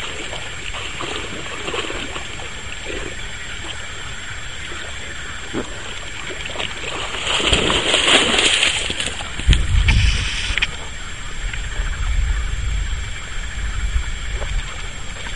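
A Fila Brasileiro dog wading through shallow lake water, its legs making scattered small splashes, then a burst of loud splashing about 7 to 9 seconds in as it runs out through the shallows. After that a low rumble, like wind or handling on the microphone, takes over.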